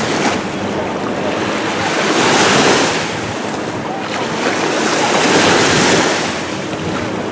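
Sea waves washing in the shallows, swelling and easing about every three seconds, with wind buffeting the microphone.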